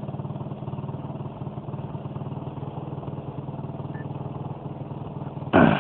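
A pickup truck's engine idles steadily. About five and a half seconds in, a single loud blast cuts across it with a short rumbling tail: a stove packed with tannerite detonating after being hit by a rifle shot.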